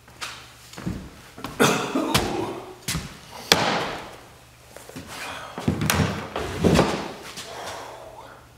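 A string of sharp knocks and thumps, several of them loud, echoing in a bare room: a man walking in and settling into a chair at a table.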